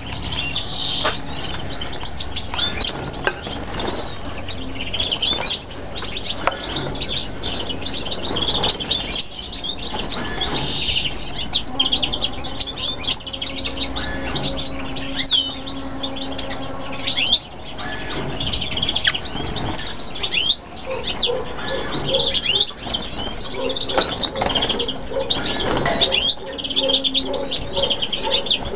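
Many small caged birds chirping and calling at once: a constant chatter of short, overlapping chirps and quick whistled glides.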